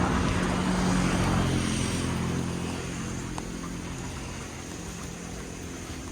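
A motor vehicle's engine passing by, its steady hum loudest at first and fading away over about three seconds.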